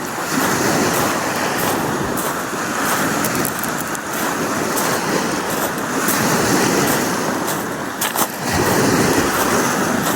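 Waves washing onto a sand beach: a steady rush of surf that swells and ebbs several times.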